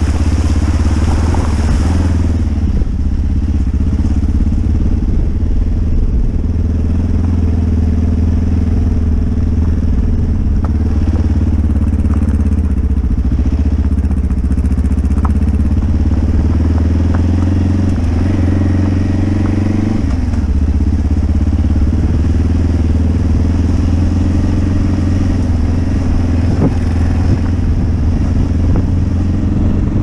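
Motorcycle engine running steadily on a dirt track, its note rising and falling gently with the throttle. For the first two seconds the front tyre splashes through a puddle.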